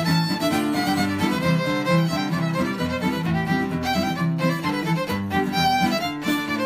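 Fiddle playing a reel with quick, busy notes over guitar accompaniment.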